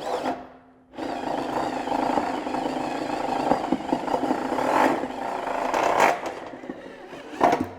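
An electric drill turns a BWS-38 multi-feed wire stripping machine while 3/0 copper cable is fed through and its blade slits the insulation. The drill starts about a second in and runs steadily, then tapers off after about six seconds. A sharp click comes near the end.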